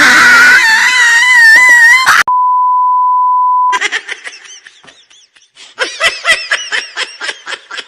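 A string of comedy sound effects: a loud wavering wail like exaggerated crying, then a steady censor beep of about a second and a half that cuts off sharply, then quick high-pitched laughter in rapid bursts.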